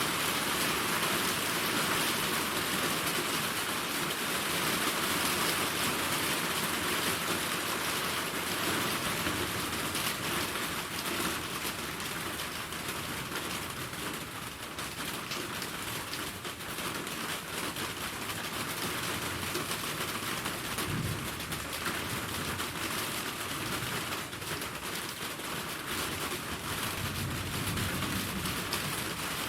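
Steady rain from a summer rainstorm, a dense even hiss of falling drops. Low rumbles, likely distant thunder, come about two-thirds of the way through and again near the end.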